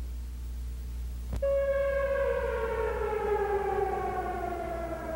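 A siren tone starts suddenly, just after a click about a second and a half in. It then slowly falls in pitch as it winds down.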